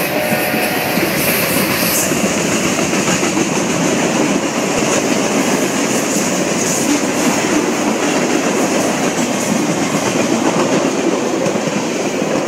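Freight train cars rolling past at close range: steady, loud noise of steel wheels running on the rails.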